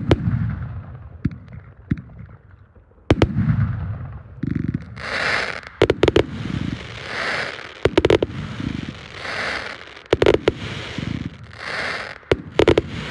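A 368-shot consumer firework cake firing a barrage: sharp launch pops and low booms, with shells bursting overhead into a crackling hiss of falling stars. From about five seconds in, the crackling bursts come roughly every two seconds.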